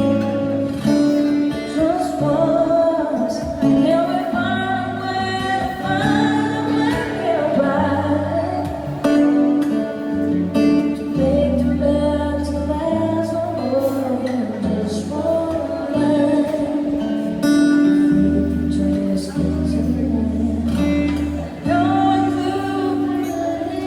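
A song: a voice singing a melody over guitar and a bass line.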